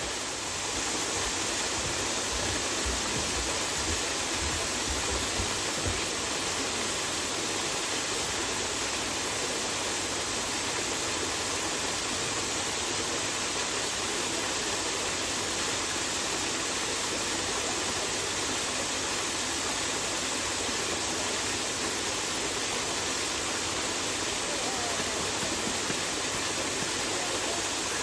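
Waterfall pouring down a rock face onto rocks: a steady, even rush of falling water.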